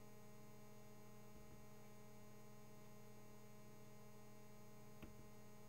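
Near silence: a steady low electrical mains hum, with one faint click about five seconds in.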